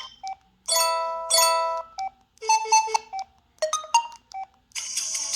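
Preloaded ringtones playing on an LG 221C phone. A short electronic tune of beeping notes comes first: two longer notes, then quick groups of short ones. Near the end, fuller music from the next ringtone starts.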